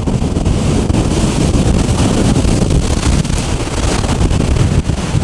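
Strong gale-force wind buffeting the microphone in a steady loud rumble, with the hiss and wash of heavy surf breaking on rocks behind it, swelling between about one and four seconds in.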